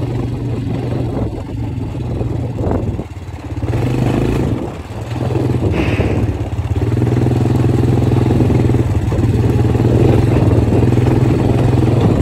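ATV engine running under way across a bumpy field track. The engine note dips briefly twice in the first five seconds, then runs steady.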